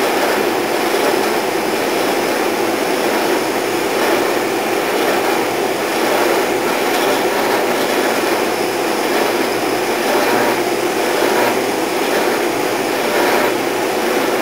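Oscillating spindle sander running with its dust collection hooked up, a small cherry drawer pull held against the spinning, up-and-down sanding drum to shape its curves. A steady, even machine noise.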